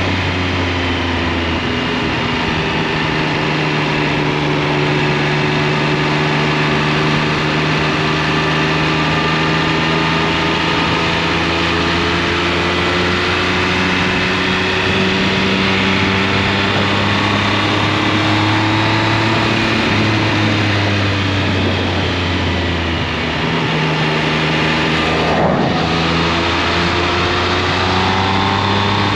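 Triumph Speed Triple 1200 RS's inline three-cylinder engine running while riding at road speed, its note rising and falling gently with the throttle.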